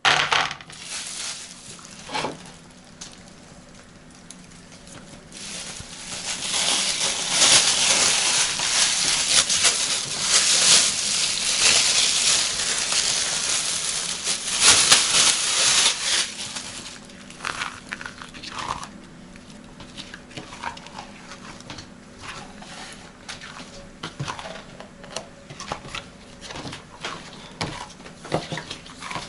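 Crinkling and rustling, loudest through the middle stretch, then trailing off into scattered small clicks and taps.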